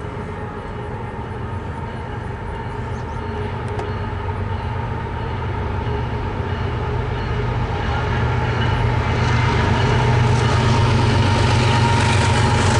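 CSX freight train's diesel locomotives approaching, their steady engine drone growing louder as they near.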